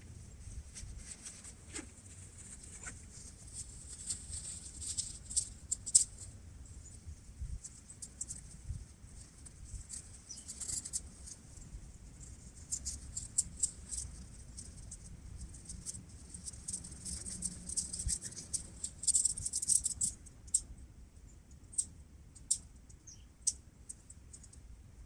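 Light crinkly rustling and scattered clicks, coming in uneven flurries that are busiest around ten seconds and again near twenty seconds in, typical of nylon tent fabric and a stuff sack being handled.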